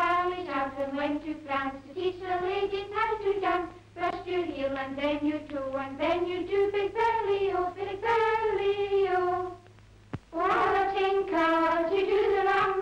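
Young girls singing a street-game rhyme, the tune moving up and down phrase by phrase; a short break and a click about ten seconds in, then the singing starts again.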